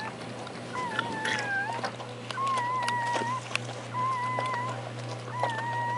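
Newborn Bernese Mountain Dog puppy crying in high, mewing squeals, about four short cries that waver slightly in pitch.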